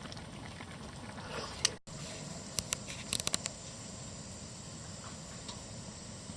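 Campfire hissing steadily, with a quick cluster of sharp crackling pops a little after halfway.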